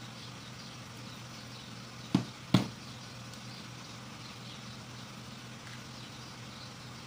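Two sharp knocks about half a second apart, about two seconds in, from hand tools being handled on a workbench, over a steady low hum.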